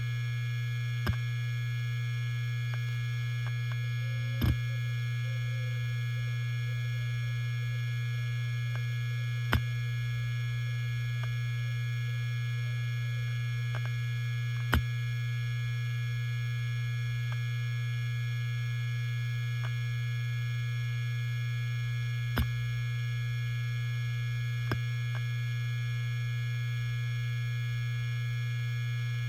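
Helium-filled hard disk drive running, its spindle giving a steady hum with thin steady high tones above it. About six short sharp clicks from the read/write heads come at irregular intervals.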